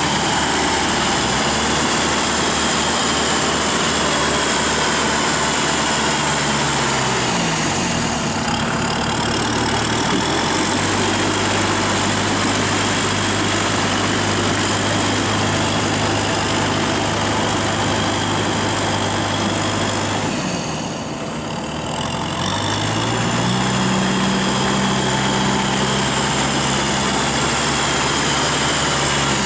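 Kubota tractor's diesel engine running as the tractor works through flooded paddy mud on cage wheels. The engine note falls about a quarter of the way in and holds lower. After a brief quieter moment it picks up again about three quarters through.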